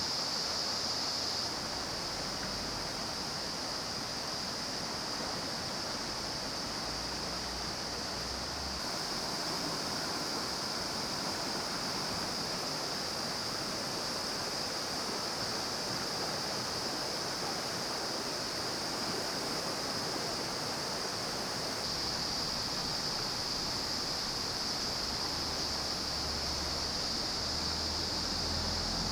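Mountain stream water rushing steadily over rocks, an unbroken even rush with a steady high-pitched hiss above it.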